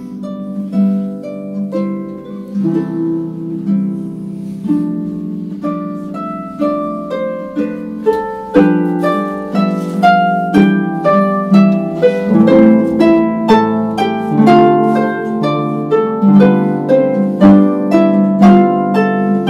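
Concert pedal harp playing a solo passage: plucked notes that ring and fade over sustained low bass notes, growing busier and louder about halfway through.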